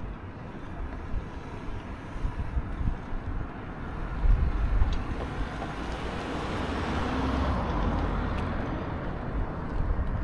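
A car passing, its road noise swelling to a peak about three-quarters of the way through and then easing off, over a steady wind rumble on the microphone.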